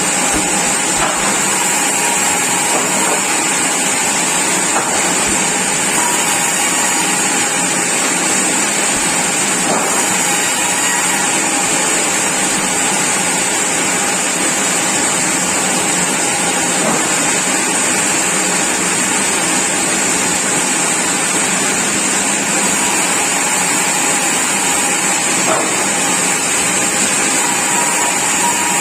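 Sawmill machinery running steadily: a constant, loud mechanical noise with a high hiss.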